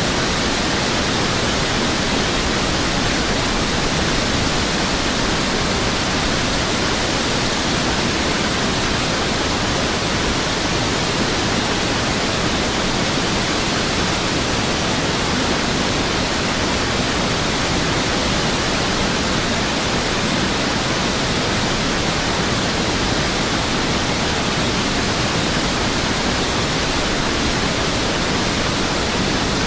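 Steady, even roar of rushing water, spread from deep bass to high hiss, with no breaks or changes.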